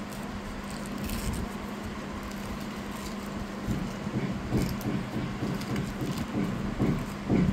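Thin plastic sheet crinkling and rustling as it is peeled off a baked cake by hand, busier from about four seconds in. A steady low hum sits underneath.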